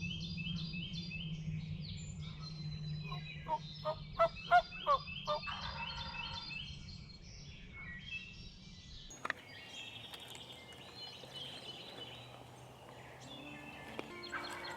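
A wild turkey gobbling once, a rapid rattling run of about seven notes lasting under two seconds, with songbirds trilling throughout.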